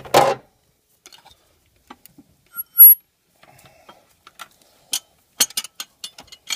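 Fan clutch wrenches clinking against the fan clutch nut and pulley bolts as they are fitted into place: a clank right at the start, a short sharp ring about three seconds in, and a run of light metal clicks near the end.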